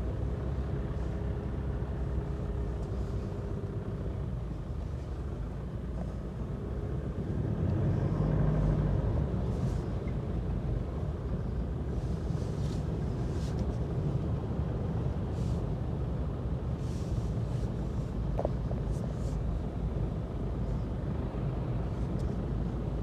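Heavy rain with a steady low rumble, and a vehicle passing that is loudest about eight seconds in.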